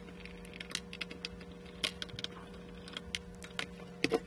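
Scattered light clicks and taps of a screwdriver and small machine screws being handled while a metal base panel is unscrewed, over a steady low hum.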